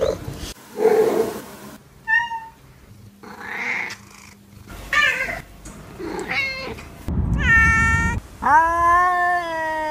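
Domestic cats' calls cut one after another: a run of short meows and other brief calls, some rough and some clearly pitched, then about eight and a half seconds in one long drawn-out call held and slowly falling.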